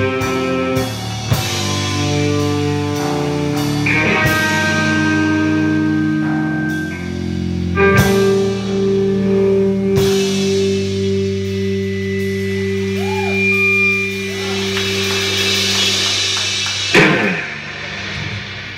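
Live rock band playing: electric guitar holding sustained chords over a drum kit, with cymbal crashes. A long held chord starts about eight seconds in, and a last loud crash comes near the end, then rings away.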